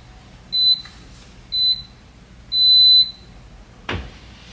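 Walking pad treadmill's start-up beeps after its on button is pressed: two short high beeps and then a longer one, the countdown before the belt starts moving. A single click follows near the end.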